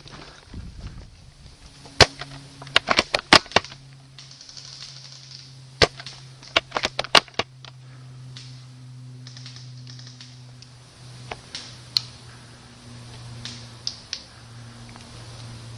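Airsoft guns firing: sharp, dry snaps, single shots and quick strings. One comes about two seconds in, a rapid run of about half a dozen follows near three seconds, and another cluster comes around seven seconds. Scattered fainter shots come later, over a faint steady low hum.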